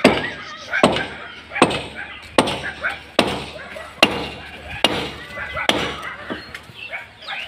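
Hand hammer blows knocking a hole into concrete for a plumbing pipe: sharp, evenly spaced strikes about every 0.8 seconds.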